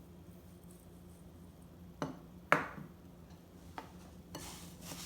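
Kitchen bowl-and-spoon handling while Rice Krispies cereal is mixed into melted marshmallow: two sharp knocks about half a second apart, then a fainter knock, over a steady low hum.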